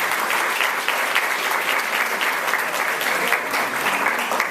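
Audience applauding in a room, a dense patter of many hands clapping.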